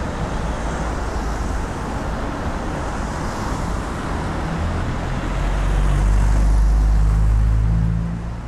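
City street traffic: cars running along the road in a steady wash of tyre and engine noise. About halfway through, a deeper engine rumble swells as a vehicle passes close, then fades near the end.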